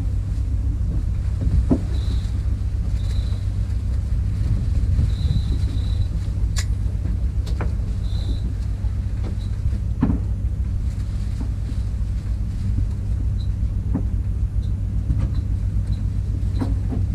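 Charter fishing boat's engine running with a steady low drone, with a few scattered clicks and knocks over it.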